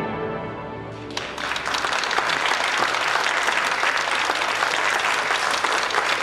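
The last notes of a theme tune die away about a second in, and a studio audience breaks into applause that carries on at a steady level.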